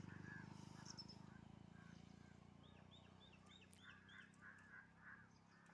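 Faint birds chirping in short repeated notes, with a run of about six quick arching calls around three seconds in, over a low steady hum that fades away.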